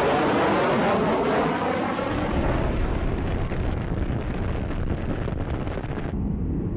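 Jet noise of a B-1B Lancer bomber passing low and close, with a sweeping whoosh. After about two seconds it gives way to a long, low rumble with crackling from a string of bomb explosions.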